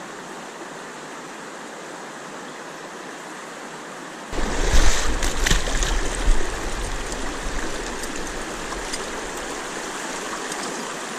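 Steady rush of river current, then about four seconds in a sudden louder stretch of splashing and sloshing close by as a landed salmon is released back into the water, settling into a louder steady flow.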